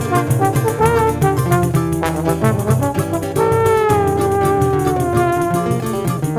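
Choro played on trombone with pandeiro, classical guitar and cavaquinho: the trombone carries the melody in quick notes, then about three seconds in holds one long note that slides slowly downward, over a steady plucked and tapped accompaniment.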